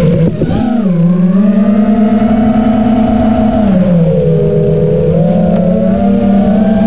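An FPV racing quadcopter's brushless motors and propellers whine, heard from the camera riding on the quad. The pitch shifts with throttle: it drops in the first second, holds, dips again a little after halfway, and climbs back up toward the end.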